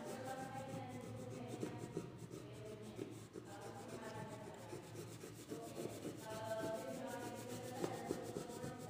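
Crayon rubbing on paper in quick, irregular back-and-forth scribbling strokes as an area is coloured in orange.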